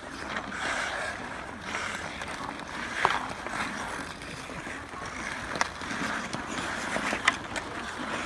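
Hockey skate blades scraping and gliding on ice, swelling and fading as the skaters move, with several sharp clacks of sticks hitting the puck and the ice, the loudest about three seconds in and again near the end.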